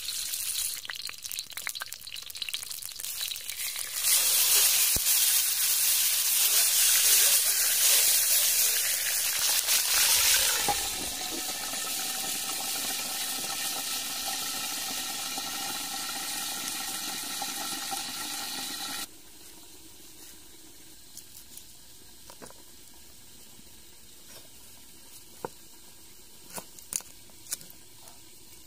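Lemongrass sizzling in a steel wok over a wood fire. The sizzle swells loud for several seconds, then settles into a steadier, quieter sizzle. It cuts off, and a few sharp taps of a cleaver on a wooden cutting board follow near the end as garlic is chopped.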